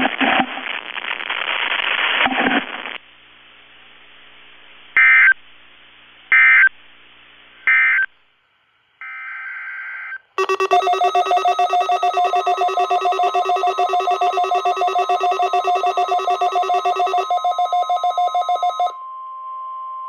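NOAA Weather Radio broadcast sending three short bursts of digital alert header data, followed by several weather alert radios going off together in rapid multi-tone beeping for a required weekly test. A steady single alarm tone joins near the end.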